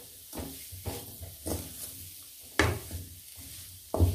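Wooden spoon scraping and knocking against a metal kadai as thick potato masala is stirred, in several separate strokes; the sharpest knocks come about two-thirds of the way through and near the end.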